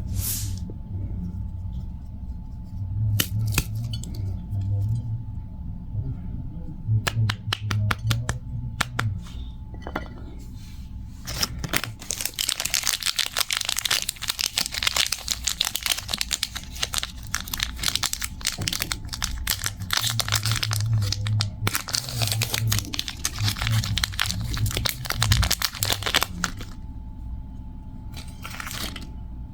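Close-miked crackling and crinkling of sweets and their wrappers: a few scattered sharp clicks and cracks, then dense crackling from about twelve seconds in that stops near the end, over a low steady hum.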